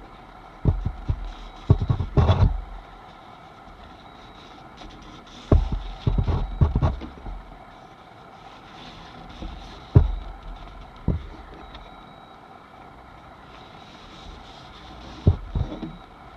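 Home sewing machine stitching a hem in nylon hammock fabric in short, slow bursts of needle thumps, about four a second, several times over a steady background hum.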